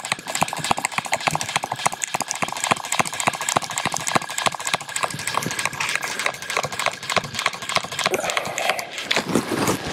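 Fly reel's click-and-pawl ratchet clicking rapidly and steadily as line is wound in on a hooked trout, close to the microphone.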